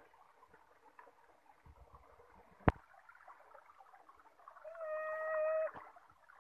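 Shallow stream water running, with a single sharp click about two and a half seconds in. Near the end comes a steady, level, pitched whine lasting about a second, which stops with a click.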